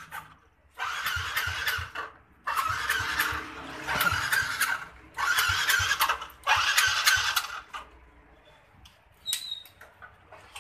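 Honda Supra X 125D motorcycle engine being cranked on the electric starter in short tries of about a second each, four times in the first eight seconds, without catching and running.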